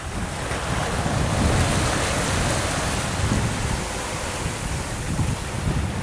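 Sea water rushing and splashing along the hull of a sailing yacht under way, with wind buffeting the microphone; the rush swells louder about a second and a half in.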